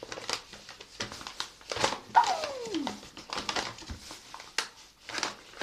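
A domestic cat giving one call whose pitch falls over most of a second, about two seconds in, among short rustling and scraping noises.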